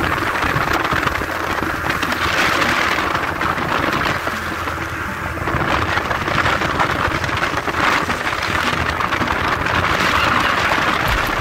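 Speedboat underway on a lake: a steady rush of water and spray along the hull mixed with wind, with a low rumble beneath.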